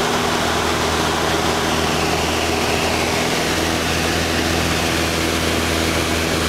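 Steady drone of a light aircraft's piston engine and propeller in level formation flight, heard from inside the cockpit, with air rushing over the airframe.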